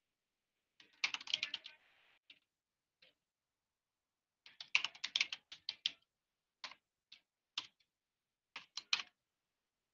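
Computer keyboard typing in short bursts: a quick run of keystrokes about a second in, a longer run around the middle, then a few single keys and a last short run near the end.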